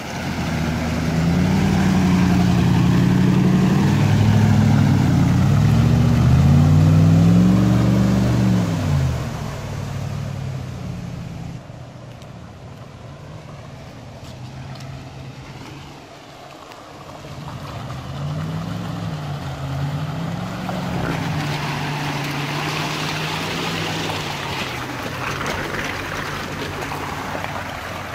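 Off-road 4x4 vehicle engine revving up and down repeatedly under throttle, loudest in the first third, then dropping back and revving again in the later part. A rushing noise joins it near the end.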